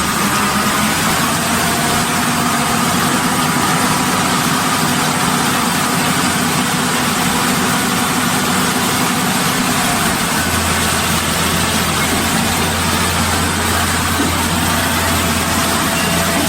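Concrete pump's engine running steadily after being sped up. A low steady hum joins in about two-thirds of the way through.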